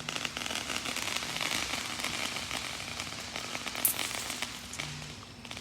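Fireworks crackling: a dense stream of tiny rapid pops like sizzling, easing off toward the end, with one sharper pop about four seconds in.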